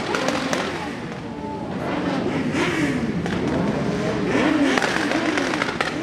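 Several vehicle engines revving over and over, their pitch sweeping up and falling back, with scattered sharp cracks.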